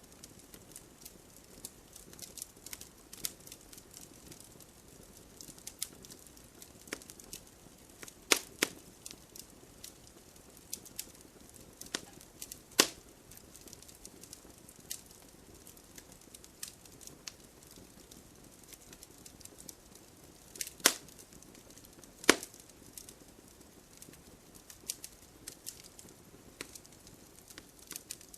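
Wood campfire crackling: burning logs give off irregular sharp snaps and pops over a faint soft hiss, with a few much louder pops scattered through.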